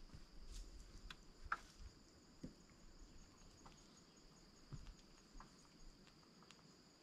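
Near silence: faint, steady high-pitched insect trilling in the woods, with a few scattered light ticks.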